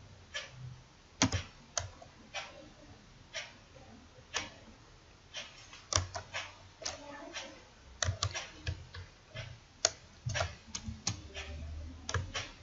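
Computer keyboard keys being tapped one at a time, in irregular short runs, with a few strokes much louder than the rest.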